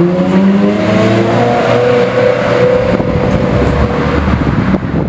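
Ferrari 360 Spider's V8 accelerating away, its note rising for the first second or so, then holding steady and fading.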